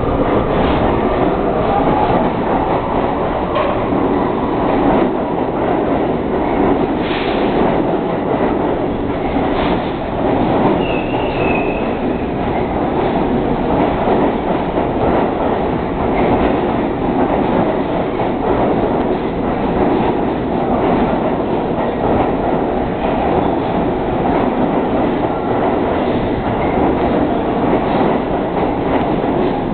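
R32 subway train running on the track: a steady rumble with wheels clicking over rail joints now and then, and a brief high wheel squeal about eleven seconds in.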